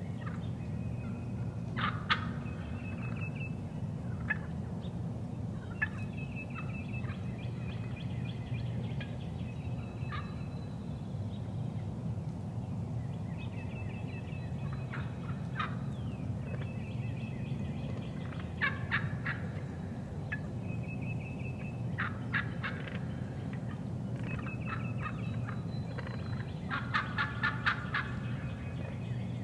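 Eastern wild turkeys calling, with repeated rattling gobbles from the toms, the loudest burst of gobbling near the end, over a steady low background hum.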